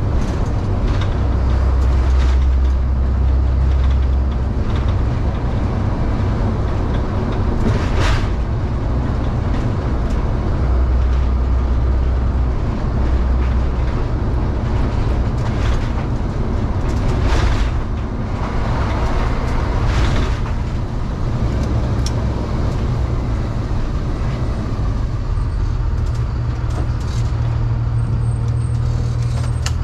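Delivery step van heard from inside its cab while driving: a loud, steady engine drone and road noise, the low pitch shifting a few times, with an occasional sharp rattle or knock from the van's body.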